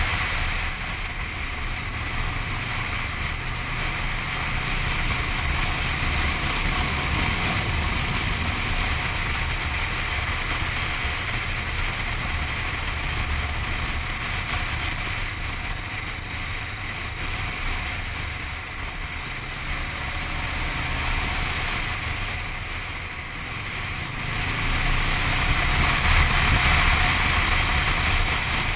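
Motorcycle riding along a road: wind rushing over the bike-mounted microphone, with the engine running underneath as a steady low rumble. It eases for a few seconds past the middle and grows louder again near the end.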